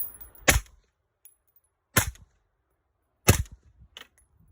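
Three suppressed 5.56 mm rifle shots, about a second and a half apart, from a 10.3-inch-barrel carbine fitted with an AAC 762-SDN6 suppressor.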